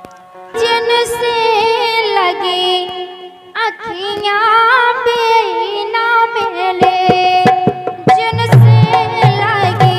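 Indian folk song music: a melody with wavering pitch starts about half a second in, and drum beats join about eight seconds in.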